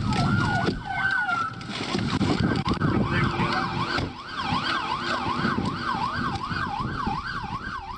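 Emergency-vehicle siren on the dashcam's audio: a slow rising and falling wail for about a second and a half, then switching to a fast yelp that sweeps up and down about twice a second, over a low rumble.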